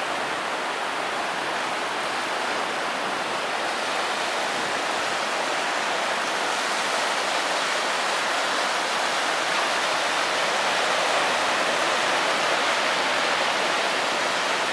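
Ocean surf breaking and washing up over a sandy beach: a steady rushing hiss.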